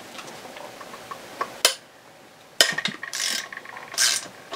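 Ratcheting wrench clicking as a bolt on an outboard lower unit's bearing carrier is backed out: faint ticks and a sharp click, then a few short bursts of ratchet clicking in the second half.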